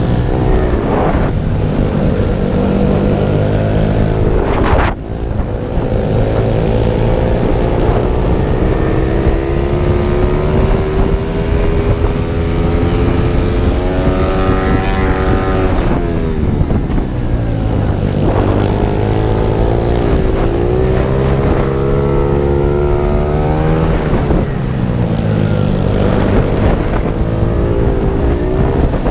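Pit bike engine heard from on board, revving up and falling back over and over as the rider accelerates and slows for corners. There is a brief drop in level about five seconds in.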